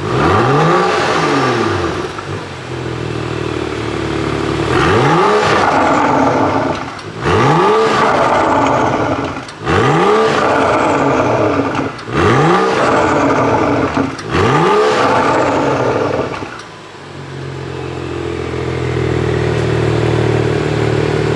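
BMW 435i's N55 turbocharged straight-six, breathing through an Akrapovic Evolution exhaust and HJS downpipe, being revved while standing: a series of quick blips about every two and a half seconds, each rising and falling straight back, then settling to a steady idle near the end.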